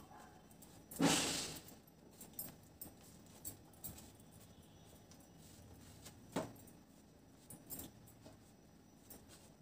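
A knife cutting and tearing soft bread buns on a metal plate: a brief louder rustling burst about a second in, then scattered light clicks and taps, one sharper click past the middle.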